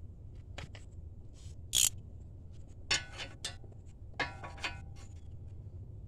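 Metal hand tools, a ratchet wrench and socket, clinking and clicking against the car's suspension parts at the lower ball joint bolt. The loudest is a sharp knock nearly two seconds in, followed by two clinks with short metallic ringing around three and four seconds in.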